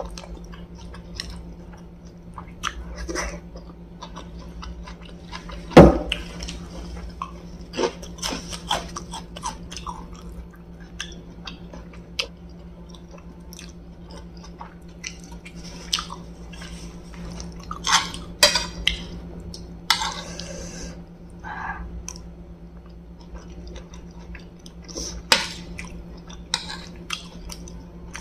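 Close-up chewing and biting of crispy fried chicken wontons (pangsit goreng), with irregular wet crackles and crunches and a sharp click about six seconds in, over a steady low hum.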